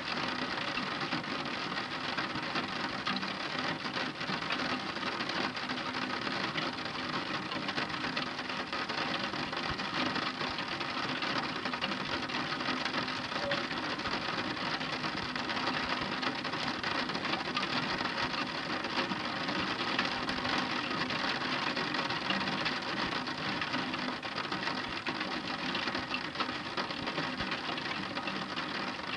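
Heavy rain falling steadily: a dense, even hiss of countless drops striking a hard surface, with fine rapid ticking throughout.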